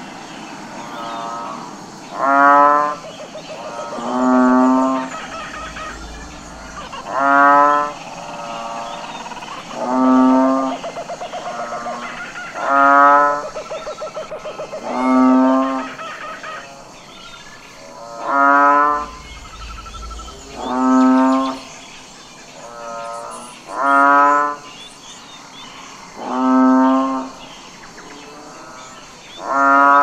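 Bulls mooing over and over: about a dozen loud calls, each roughly a second long and coming every two to three seconds, with quieter calls in between.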